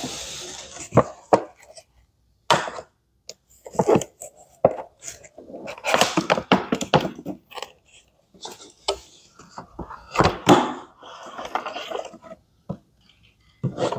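A cardboard toy box being handled and a plastic toy bus slid out of it: scraping and rustling of the packaging with hollow knocks at irregular intervals.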